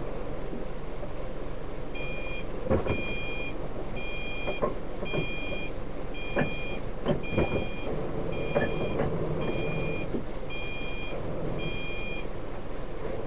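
Truck reversing alarm beeping about once a second for some ten seconds, starting about two seconds in, over the diesel engine running. Several sharp knocks come in the middle.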